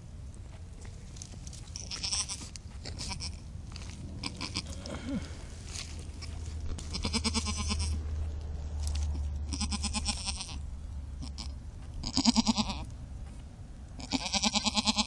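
Goats bleating beside a newborn kid: a series of short quavering bleats every two to three seconds, the loudest about twelve seconds in and a longer one near the end.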